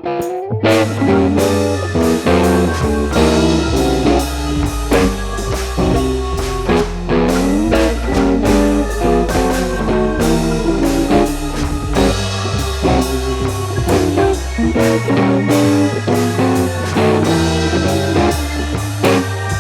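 Blues-rock style music: plucked guitar over bass and a drum kit with a steady beat, starting abruptly about half a second in.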